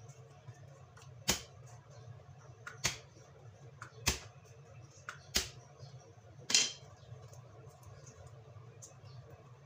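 Five sharp knocks, about one every second and a bit, as the flat of a wooden spatula is smacked down on garlic cloves on a cutting board to crush them, with softer handling of the cloves after the last one.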